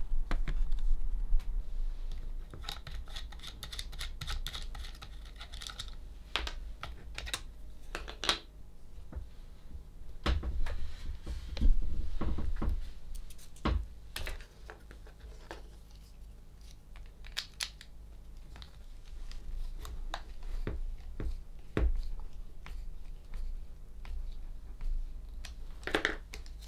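Hands handling the hard plastic parts of a mini cordless chainsaw and its battery packs: irregular clicks, taps and rustling as parts are turned over, picked up and set down, with a few heavier knocks about halfway through.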